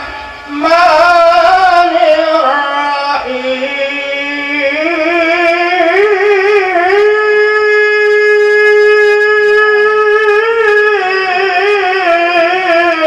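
A man's voice reciting the Qur'an in melodic tilawah style through a handheld microphone. The notes are long and ornamented with wavering runs. There is a short pause for breath just after the start, and a long steady note is held near the middle.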